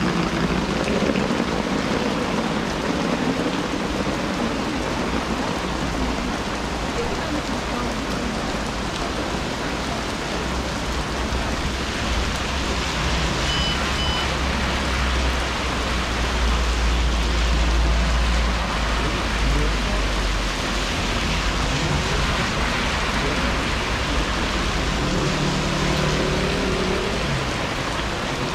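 Steady rain falling, an even hiss throughout. A low rumble swells and fades through the middle, and a short double beep sounds about halfway through.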